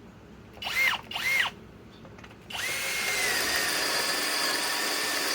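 Cordless hammer drill on low speed (speed 1), driving a 1-inch spade bit. Two short trigger blips, each whine spinning up and dying away, then about two and a half seconds in it runs steadily with an even whine.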